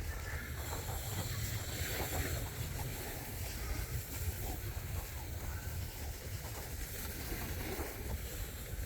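Wind buffeting the camera's microphone during a downhill run on snow, a steady low rumble with a broad hiss over it from sliding on the snow.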